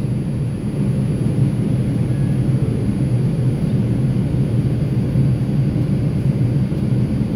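Steady rumble of an R142 subway car under way, heard from inside the car.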